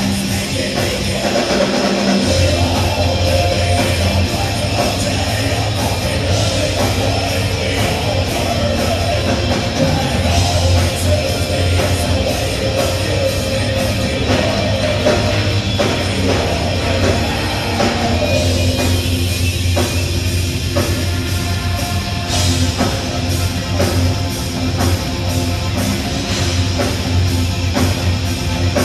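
A heavy metal band playing live at full volume: distorted electric guitars, a drum kit and a singer, heard through the club's PA.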